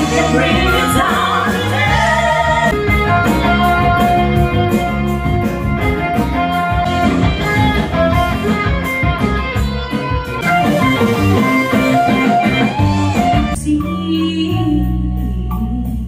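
Live stage-show music: women singing into microphones over a band with drums and piano. About fourteen seconds in, the drums drop out and the music turns into a softer passage.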